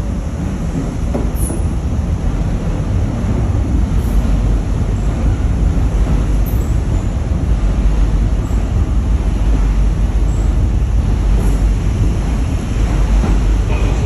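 Docklands Light Railway train pulling out along the platform, its wheels on the track making a steady low rumble.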